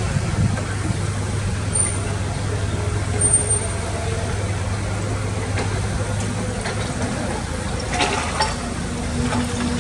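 Heavy construction machinery's diesel engine running steadily under load, with a short clatter of knocks about eight seconds in.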